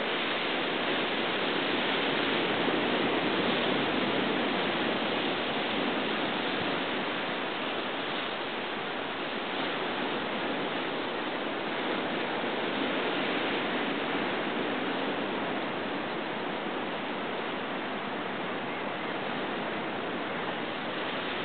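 Ocean surf washing on a rocky shore: a steady rush of water noise that swells gently a couple of times.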